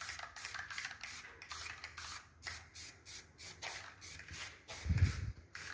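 Aerosol spray can of clear lacquer hissing in a quick series of short bursts, laying a light dusting coat onto a painted alloy wheel. A dull low thump comes near the end.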